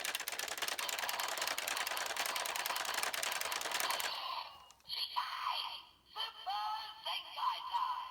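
Electronic sound effects from a Sentai role-play toy played through its small speaker. A rapid clicking, whirring run lasts about four seconds, then short electronic calls and voice-like jingle notes follow.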